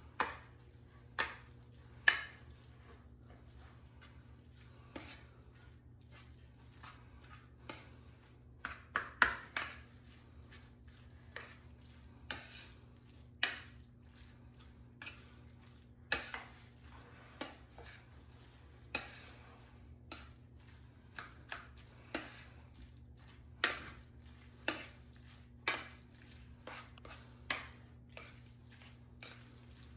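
A metal spoon stirring spaghetti with meat sauce and cheese in a bowl, with irregular clinks and scrapes against the bowl about every second or two, sometimes several in quick succession.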